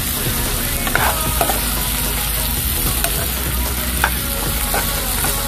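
Chicken pieces frying in oil with onion and garlic in a pan, a steady sizzle, while a spatula stirs them and knocks and scrapes against the pan a few times, most sharply about a second in and about four seconds in. This is the sauté stage, the chicken just going into the hot pan.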